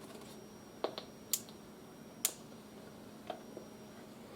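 Weather alert radio's buttons being pressed: about six sharp plastic clicks at uneven intervals, two of them louder, over a faint steady electrical hum.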